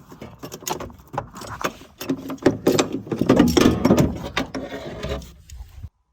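Dense mechanical clicking and rattling of metal tools and parts while a car door's check strap (door brake) is worked on. The sound cuts off suddenly near the end.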